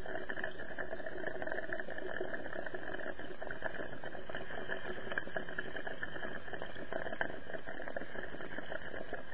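Water bubbling steadily through a glass dab rig as a hit is drawn through it. It starts abruptly and stops abruptly about nine seconds later.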